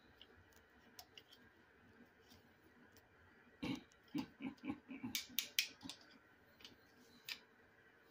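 Light metal clicks and knocks from a piston ring compressor being tightened and set around a piston in a diesel engine block, with a quick run of about a dozen knocks midway and scattered faint clicks around it.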